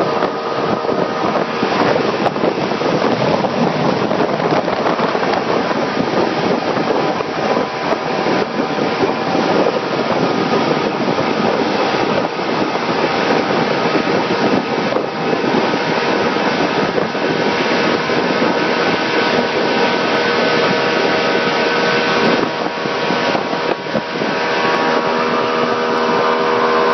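Motorboat running at speed: a steady engine drone under wind buffeting the microphone.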